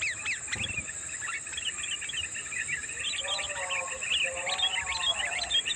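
Sooty-headed bulbuls (kutilang) chattering: a dense run of quick, short chirps, over a steady high insect-like whine. Lower, drawn-out pitched calls come in about three and four seconds in.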